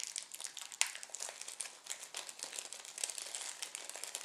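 A small model-kit parts packet crinkling and crackling as it is handled and opened to get a spring out, a steady run of quick, sharp crackles with one sharper snap about a second in.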